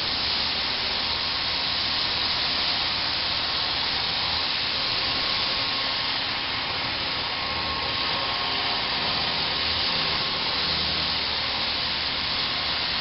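Millstar 2-inch HFA-2000/5 high-feed face mill roughing pre-hardened P-20 tool steel on a vertical milling machine: a steady, hissing cutting noise with a faint machine hum underneath, the cutter taking a light 0.040-inch-deep, 1.2-inch-wide cut at a fast 245 inches per minute.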